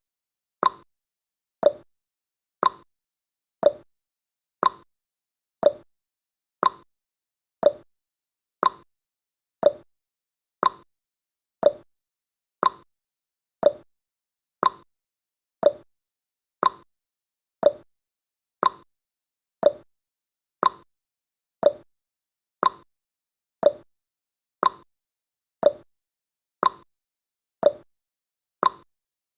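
Countdown timer's tick sound effect: a short click once a second, each dying away quickly, in an even steady rhythm.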